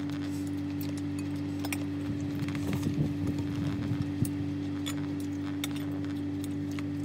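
Metal spoons and forks clinking and scraping against ceramic bowls and plates during a meal, in scattered light clicks with a busier clatter in the middle, over a steady low hum.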